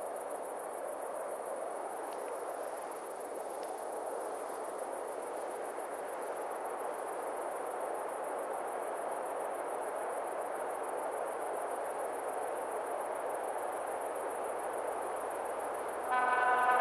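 An ST44 diesel locomotive with its 14D40 two-stroke V12 runs in the distance as a steady rumble that slowly grows louder, with crickets chirping. Near the end its horn starts, a sudden loud chord of several tones.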